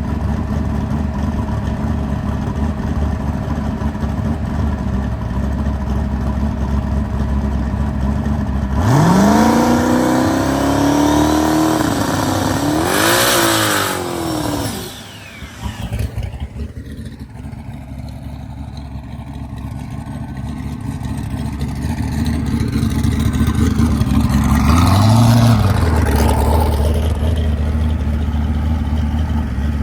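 Drag car engine idling, then revved up with rising pitch for about three seconds, and briefly again with a loud hiss before it drops back. Later the engine speed slowly rises and falls once more.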